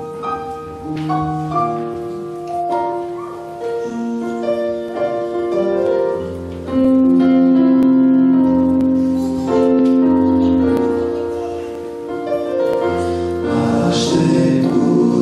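Keyboard accompaniment playing slow, long-held chords as an introduction, with the men's vocal group coming in to sing near the end.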